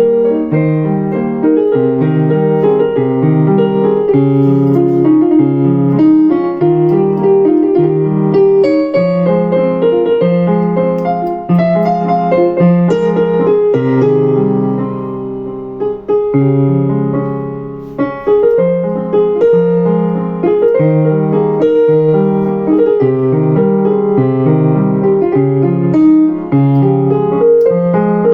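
Yamaha PSR-EW425 76-key portable keyboard played with a piano voice: a flowing piece over a repeating left-hand accompaniment figure, softening briefly about halfway through before picking up again.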